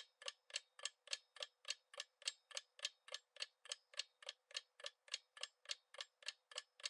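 Quiz countdown-timer sound effect: a clock ticking steadily at about three or four even ticks a second.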